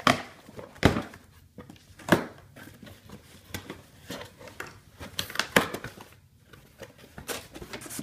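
Cardboard shipping box being opened by hand: packing tape slit and torn, flaps pulled back with crinkling and scraping, and several sharp cardboard knocks.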